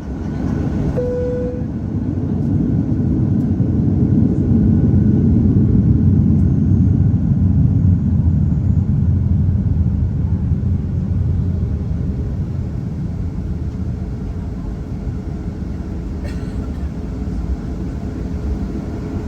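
Cabin noise inside a Boeing 737-800 on its takeoff run: a loud low rumble from its CFM56 engines and the runway. It swells over the first few seconds, then eases slightly. A brief tone sounds about a second in.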